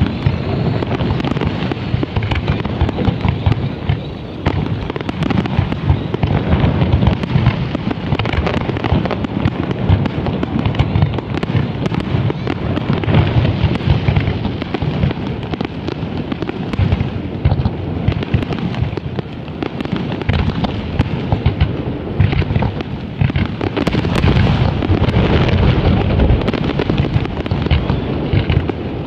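Large aerial fireworks display: many shell bursts and launches banging in quick, overlapping succession with no pause.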